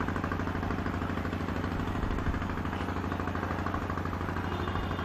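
A motor vehicle's engine running steadily with a low hum and a fast, even throb.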